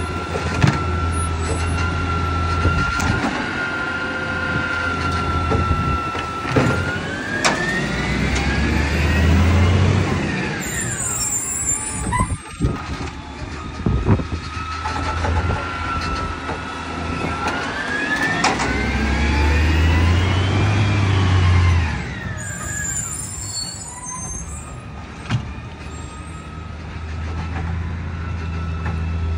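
Side-loading garbage truck running: a steady engine throb with a held whine, then twice the engine and whine rise in pitch for a few seconds and fall away as it pulls along the street, with a few sharp clanks.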